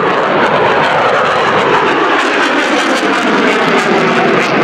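USAF Thunderbirds F-16 fighter jet's engine noise, loud and steady, rushing across a wide range, with a light crackle from about two seconds in, as the jet flies its minimum-radius turn.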